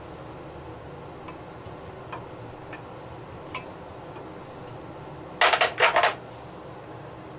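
Spice jars being handled on a kitchen counter. Faint scattered ticks come from a paprika shaker being worked over a glass bowl, then a short loud clatter of several quick knocks about five and a half seconds in, as the jars are set down and picked up.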